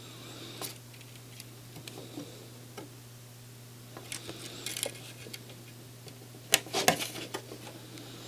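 Soft, scattered clicks and scratchy ticks of a soldering iron tip and thin copper wire working along the pins of a surface-mount IC, desoldering it by the copper-wire method. The clicks come closer together and louder about six and a half seconds in, over a steady low hum.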